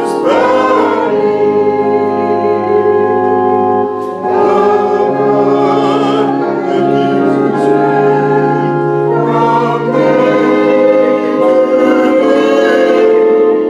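A choir singing a slow gospel hymn in long held notes with vibrato, over a steady accompaniment whose bass notes change every few seconds.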